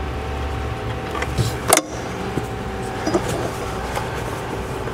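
Needle-nose pliers working the spring clamps on an engine's PCV hoses: one sharp metallic click a little under two seconds in and a few lighter clicks and ticks, over a steady low hum.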